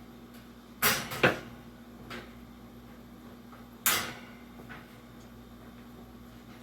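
Sharp clacks of hard parts being handled while a vintage Hunter 20-inch box fan is taken apart: a quick double clack about a second in, a single sharp one about three seconds later, and a few lighter taps.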